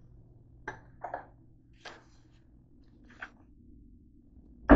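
Four short, soft clicks and rustles over a low steady hum.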